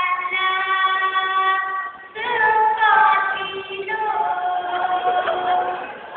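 A group of teenage boys singing together in harmony, unaccompanied, holding long notes. The phrase breaks off about two seconds in and a new phrase starts with a slide in pitch.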